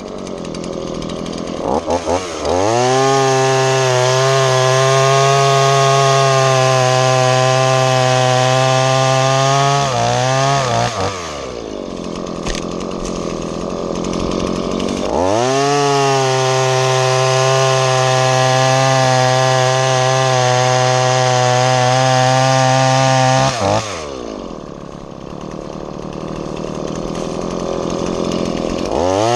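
Dolmar gas chainsaw bucking a log into firewood rounds. It revs up about two and a half seconds in and holds at steady full throttle through a cut for about eight seconds, then drops back to idle. A second cut of about the same length starts about fifteen seconds in, followed by idle, and the saw revs up again at the very end.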